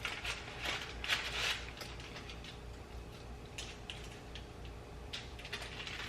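Metal spatula scraping against a frying pan, working stuck French toast loose and flipping it. There are a few short scrapes in the first second and a half, then fainter scattered scrapes and ticks.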